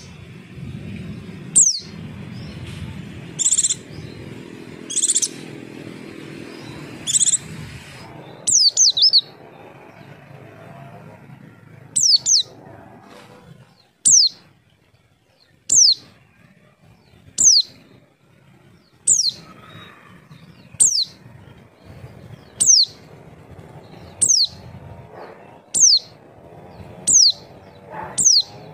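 White-eye (pleci) calling: short, sharp, high whistles that slide downward, repeated about every one and a half to two seconds, with a few buzzier notes in the first third. It is a lure call meant to make other white-eyes answer. A low hum runs underneath and fades about halfway through.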